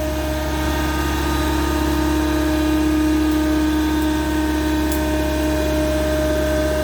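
Engine of a post-hole auger rig running steadily at an even speed.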